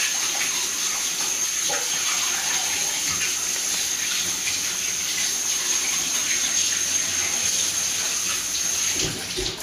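Kitchen tap running in a steady stream, with a thin high whistle over the hiss, shut off suddenly about nine seconds in.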